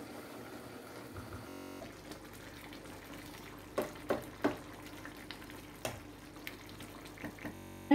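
Chicken curry simmering in a nonstick pan on a gas burner, a faint steady bubbling hiss. From about four seconds in it is stirred, with a few sharp taps and scrapes of the utensil against the pan.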